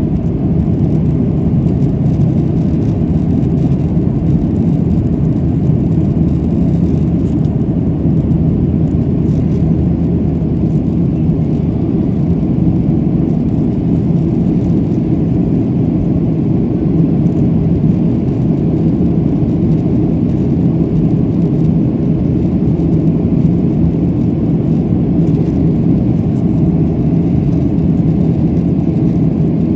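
Boeing 737-700 CFM56-7B turbofan engines running at high power, a steady, unchanging deep rumble with a faint hum, as heard inside the cabin during takeoff.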